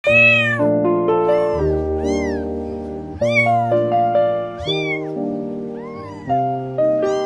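A cat meowing repeatedly, each meow rising and then falling in pitch, over background music with slow held chords.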